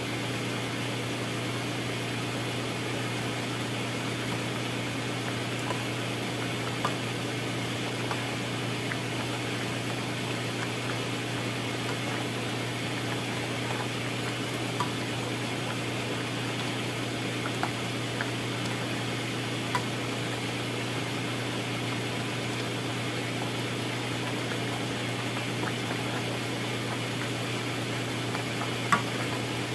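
Steady hiss of a pot of red lentils simmering on the stove over a low hum, with a few faint taps of a masher against the pot as the cooked lentils are mashed.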